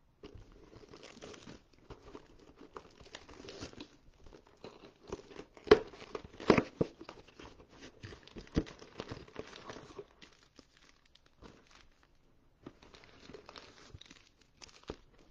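Plastic shrink wrap being torn and crumpled off a 2021 Panini Phoenix football hobby box, then the cardboard box opened and its card packs handled. Irregular crinkling with a few sharper snaps about six seconds in, growing sparser after about ten seconds.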